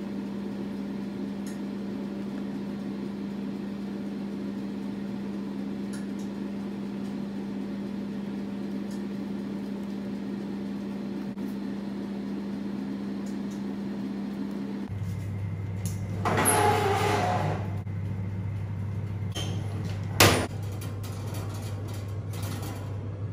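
A steady low hum runs throughout and drops to a lower pitch about fifteen seconds in. After that comes a scraping, sliding sound lasting a second or so, then a single sharp knock, as an aluminium tube pan goes onto a countertop oven's wire rack.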